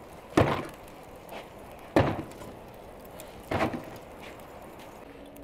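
Three sharp knocks about a second and a half apart, each with a brief rattle trailing after it.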